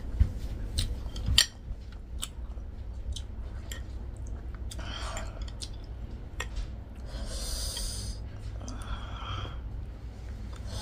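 Close-miked eating sounds: chopsticks clicking and tapping against plates a few times in the first two seconds, then noodles slurped in short hissing pulls about halfway through and again near the end.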